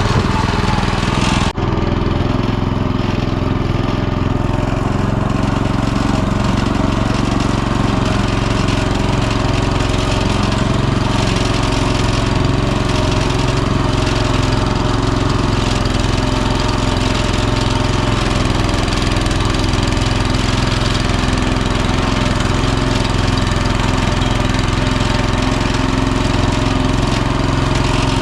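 Walk-behind tractor's small single-cylinder engine running steadily under load, with a brief break about a second and a half in.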